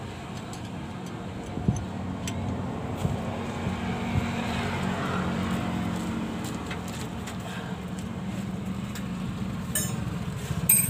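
Steady low mechanical hum, with a few sharp metallic clicks of a combination wrench working a bolt on a truck's clutch slave cylinder, the loudest about two seconds in and just before the end.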